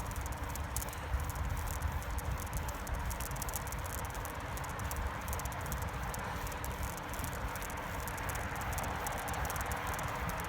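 Steady outdoor noise of travelling along a trail beside a highway: a low rumble and hiss with fast, fine high ticking throughout.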